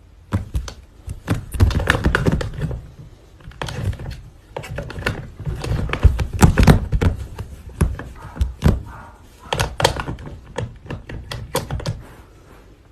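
A rapid, irregular run of knocks and thumps on hard surfaces, the loudest about six to seven seconds in.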